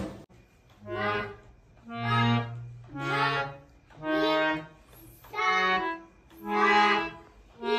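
Harmonium played by a small child pressing its keys: short reedy notes or chords, about one a second, each held briefly and released.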